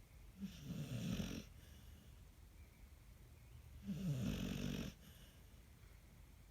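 Dog snoring in deep sleep: two loud snores about three and a half seconds apart, each lasting about a second, with quiet breathing between.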